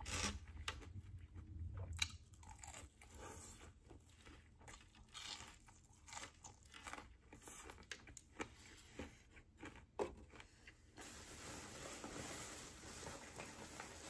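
Close-miked chewing of fried, breaded, cheese-filled bites: soft crunches, sharp mouth clicks and wet chewing. From about eleven seconds in, a steady soft rustling takes over.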